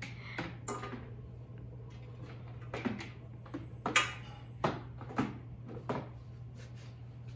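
Scattered light clicks and knocks, about eight of them, as a cord and fittings are handled along the top rim of a glass aquarium, over a steady low hum.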